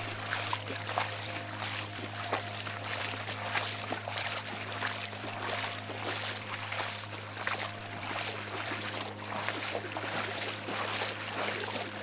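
Footsteps wading and splashing through shallow muddy floodwater, with irregular sloshes and splashes over a low steady hum.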